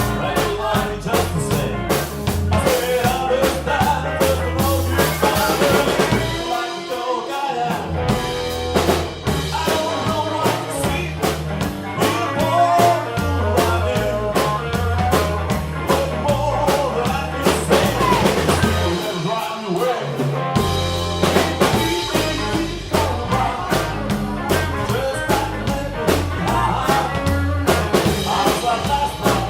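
Blues music from a band with harmonica, a drum kit and a bass line playing a steady beat. The bass drops out briefly twice, about seven seconds in and again about twenty seconds in.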